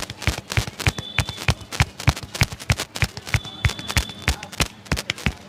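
Barber's hands striking the body in a percussive massage: quick, uneven slaps and chops at about five or six sharp strikes a second.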